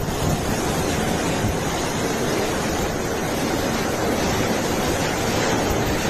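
Cyclone Dana's storm-force winds with driving rain: a steady, loud rush of wind noise, with gusts buffeting the microphone.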